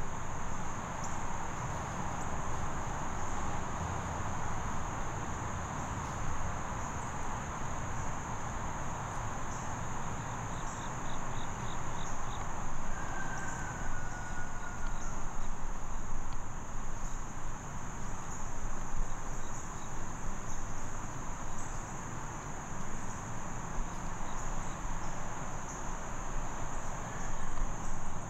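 Woodland insects, such as crickets, trilling in a steady, continuous high-pitched chorus over a low background rumble.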